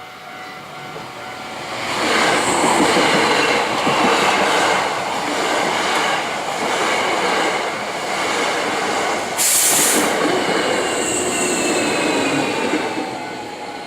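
An electric commuter train passing over a railway level crossing: wheels on the rails rise loudly about two seconds in and run on for around eleven seconds. There is a brief sharp hiss about halfway through the loud part, and slowly falling whining tones near the end as the train fades.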